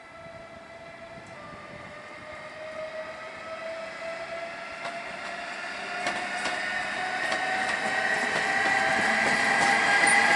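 SNCB class 18 (HLE 18) electric locomotive hauling double-deck coaches, approaching and growing steadily louder. It makes a whine of several steady tones that rise slightly in pitch, with a few wheel clicks on the rails as it draws near.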